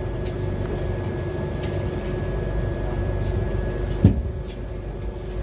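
Running rumble of a slowly moving passenger train heard from inside the coach, with a faint steady hum and a thin high whine. A single sharp clunk comes about four seconds in.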